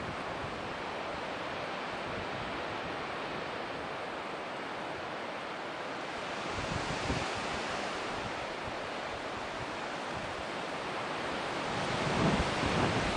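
Wind blowing on the camera microphone: a steady rushing hiss, with gusts buffeting the microphone about seven seconds in and again near the end.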